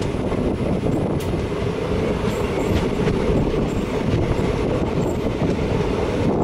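Indian Railways train running at speed, heard from inside the coach. The wheels rumble steadily on the rails, with a few faint clicks.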